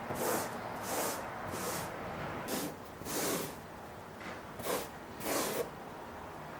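Rubber broom pushed over a floor or rug in about eight short swishing strokes, one every half second to a second, gathering up cat hair.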